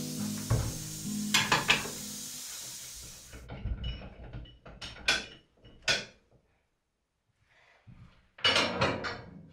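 Background music fades out over the first few seconds. Then a heavy metal pot and its lid knock and clank on a wooden table as they are handled: a few separate knocks, and a longer clatter near the end.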